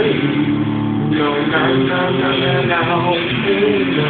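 Electric guitar played through an amplifier: sustained notes with a melodic line moving over them.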